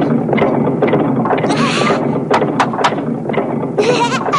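Cartoon sound effects over a busy background: a short rush of noise about one and a half seconds in, then three sharp clicks in quick succession, with brief squeaky pitched sounds around them.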